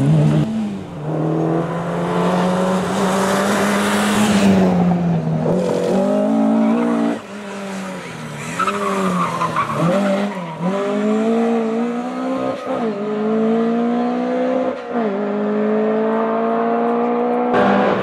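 Ford Escort Mk II rally car's engine revving hard through a hairpin, the revs dipping and climbing as the car slides, with tyre squeal about nine seconds in. It then accelerates away, the engine pitch rising and dropping back at each upshift.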